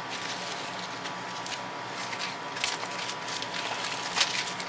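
Light taps and rustles of a cardboard box being handled and opened, a few short clicks spread out over a steady background hum.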